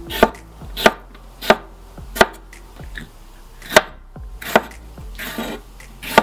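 Wide cleaver-style kitchen knife chopping a sweet bell pepper into half-rings, each stroke knocking sharply on the board beneath: about seven unevenly spaced chops, with a short scrape a little past five seconds.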